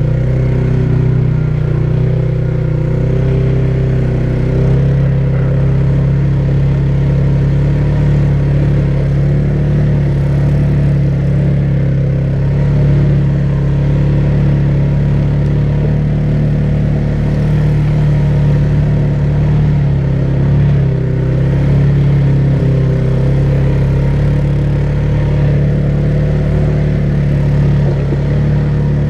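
ATV engine running at a steady, nearly constant pitch, as when riding along a trail at an even speed.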